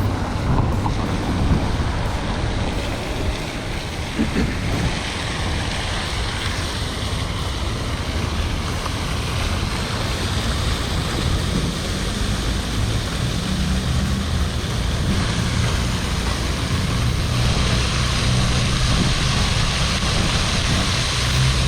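Steady street traffic noise, a low rumble of passing vehicles that swells near the end, with wind rushing on the microphone.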